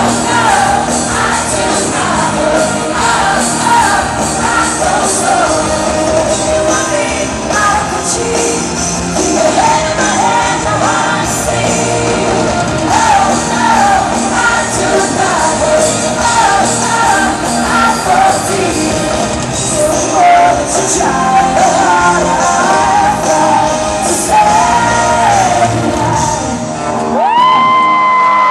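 Live pop-rock band playing with a female lead vocalist belting the song over guitars, keyboards and drums, heard from the audience. Near the end a single high note slides up and is held steady.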